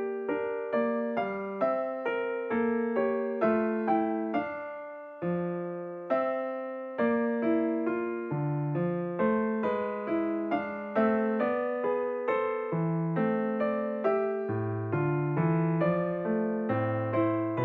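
Background music: a gentle solo piano melody, notes struck one after another and left to decay, with a brief pause about five seconds in.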